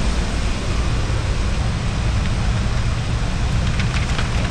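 Semi-truck diesel engine idling with a steady low rumble.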